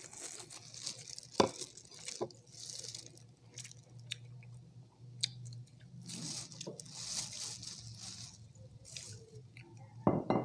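Chewing and wet mouth sounds of people eating saucy chicken wings and rice, with scattered smacks and clicks; the loudest is a sharp click about one and a half seconds in. A faint steady low hum runs underneath.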